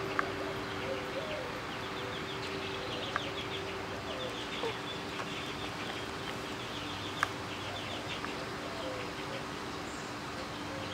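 Backyard birdsong in repeated short, fast chirping trills, with low clucking from hens, over a steady hum. A few sharp knocks stand out, about three seconds apart.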